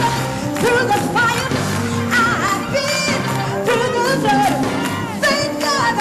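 Live gospel music: a singing voice sliding and bending between notes over sustained chords, with a steady percussion beat.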